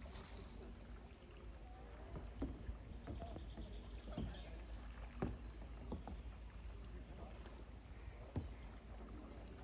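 Faint riverside ambience with a steady low rumble, faint distant voices and a handful of short, sharp knocks at irregular times, the loudest a little past halfway.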